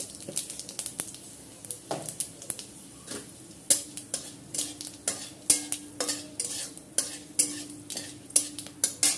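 Panch phoron and a dried red chilli sizzling in hot oil in a steel kadai, with a spatula scraping and tapping against the pan as the spices are stirred. The strokes grow louder and quicker after about three seconds.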